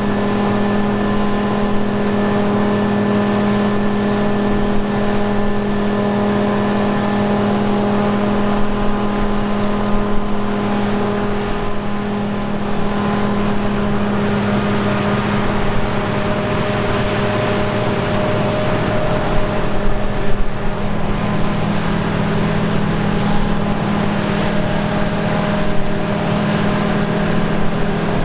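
Large diesel engine of harvest machinery running steadily under load, a continuous deep hum with a slight change in pitch about two-thirds of the way through.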